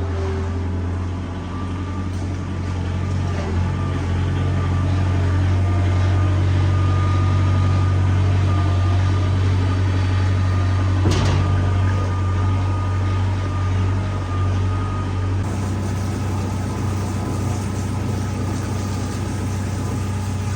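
An engine running steadily, a low even hum with a faint high whine above it.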